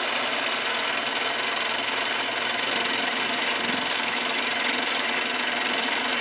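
Mini lathe running and turning a bar of 12L14 free-machining steel: a steady, even scraping hiss of the cutting tool on the spinning bar over the lathe's motor.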